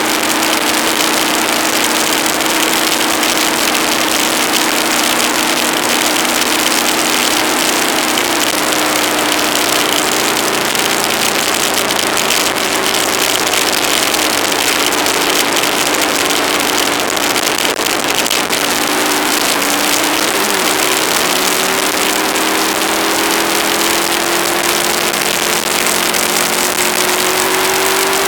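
Aprilia ETV 1000 Caponord's V-twin engine running while the motorcycle is ridden, under a heavy rush of wind noise on the camera microphone. The engine pitch drops about 8 seconds in, wavers around 20 seconds, then rises steadily near the end as the bike speeds up.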